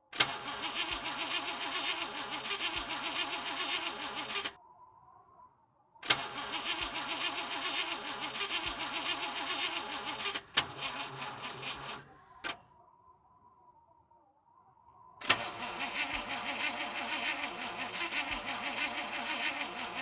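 A car's starter motor cranks the engine in three long attempts, each opening with a click and running as a rapid, even chugging, and the engine never catches. This is a failed start, which the uploader puts down to a flat battery.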